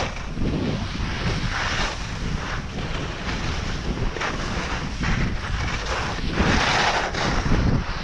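Wind buffeting the microphone while riding downhill, over the hiss of edges scraping packed snow, which swells in surges every second or two as turns are carved.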